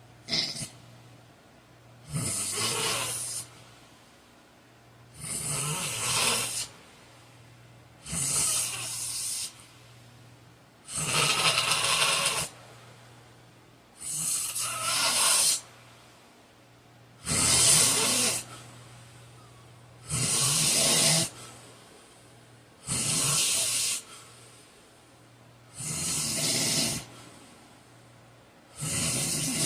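A heavy-set man snoring loudly in his sleep: a long snore about every three seconds, ten in all, steady in rhythm.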